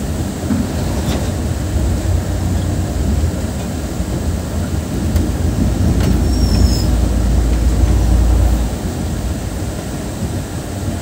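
Steady low rumble of a KSRTC Volvo coach on the move, its engine and road noise. A heavier, deeper rumble swells about six and a half seconds in and drops away abruptly a couple of seconds before the end, with a few faint clicks along the way.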